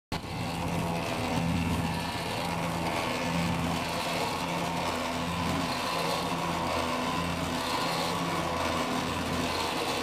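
Homemade electric concrete mixer, a 120-litre metal drum driven by a belt from an electric motor, running and tumbling a batch of concrete. A steady motor hum swells and fades about once a second over the noise of the mix turning in the drum.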